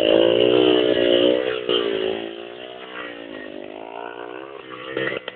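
Motorcycle engine revving, its pitch rising and falling; it is loud for the first two seconds, then drops lower and quieter before climbing again. A few sharp clatters come near the end.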